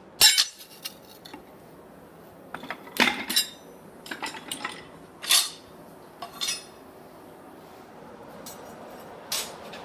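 Steel hand tools and tongs clinking against the anvil as they are picked up and set down: about seven sharp metallic clinks at uneven intervals, the loudest right at the start.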